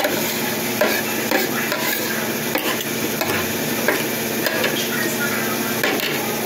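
Metal spoon and fork scraping and clinking against a ceramic plate while scooping up the last of a meal, in short irregular scrapes and clicks, over a steady background hiss.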